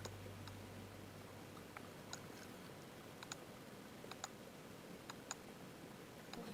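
Faint computer mouse clicks, a dozen or so at irregular intervals, over quiet room tone.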